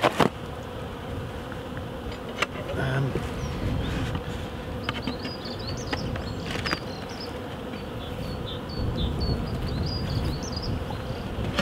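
Honeybees buzzing in a steady hum around a polystyrene nuc hive, with a few sharp clicks and cracks as a hive tool prises the lid off.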